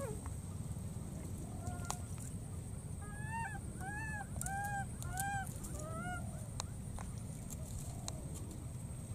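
Baby macaque calling: a few single short cries, then a quick run of about five arched cries, each rising and falling, a little over half a second apart, midway through.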